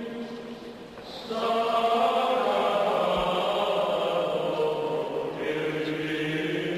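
Slow choral music: voices holding long, chant-like chords, with a new chord coming in after about a second.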